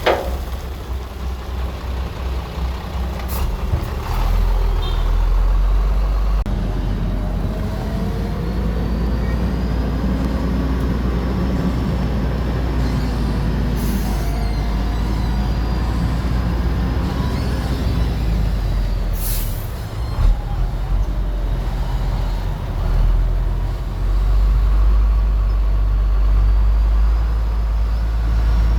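Heavy diesel construction machinery running under load, its low engine note rising and falling a few times. Three short hissing bursts are heard, the sort of release typical of a truck's air brakes.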